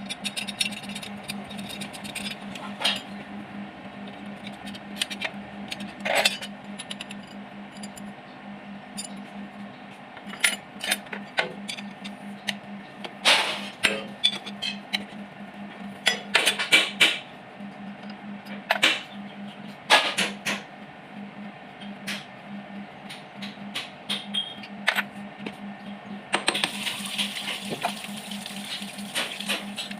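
Metal hand tools and engine parts clinking and knocking at irregular intervals during a diesel engine teardown, over a steady low hum. A stretch of hiss comes in near the end.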